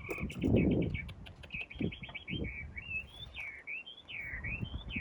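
A songbird singing: a quick run of repeated chirps, then warbling whistled phrases that slide up and down. Dull low thuds sound under it, loudest in the first second.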